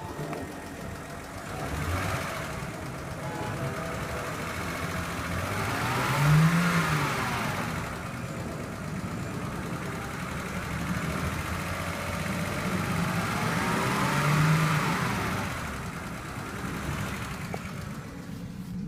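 2008 BMW 528xi's inline-six engine running with a loud ticking, revved up and let back down to idle twice; the ticking speeds up with the revs, which the owner's tags put down to a lifter.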